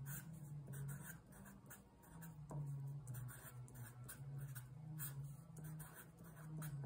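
Felt-tip marker writing on paper: faint, short scratching strokes over a low hum.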